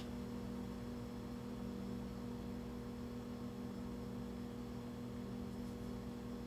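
Steady electrical mains hum: a low drone with a fainter higher tone above it, holding level and unchanging, over faint hiss.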